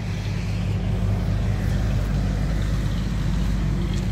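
Engine running steadily at one low, unchanging pitch, with a haze of road traffic noise.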